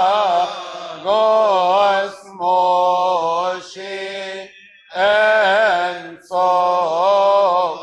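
Male chanting of a Coptic Christmas hymn a cappella. It moves in long melismatic phrases that wind up and down in pitch, with short breaks for breath between them.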